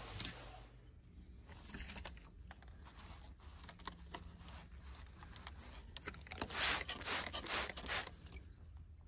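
Water spraying from a hand-held hose nozzle: a loud hiss for about a second and a half near the end, after a stretch of scattered faint scrapes and clicks.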